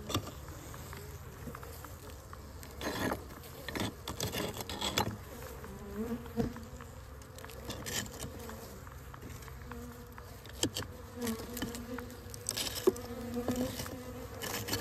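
Honeybees buzzing over an open hive, their hum coming and going. Scattered scraping and crumbling sounds come from sugar bricks being handled and laid on the wooden top bars.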